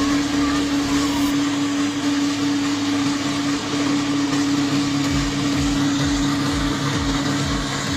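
Brick-making machine running steadily with a strong motor hum and a noisy whirr; about five seconds in, a low pulsing of roughly three beats a second joins it.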